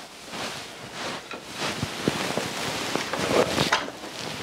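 Irregular rustling and scraping, with a few light knocks about two seconds in, from objects being handled and moved about.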